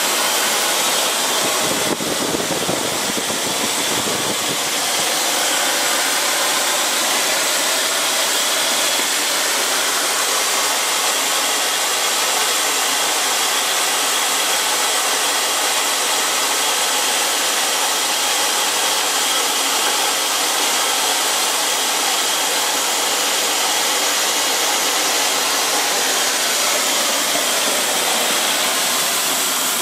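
Homemade turbojet built from a Volvo TD04HL-13G turbocharger, running steadily: an even rush of jet noise with a strong high hiss.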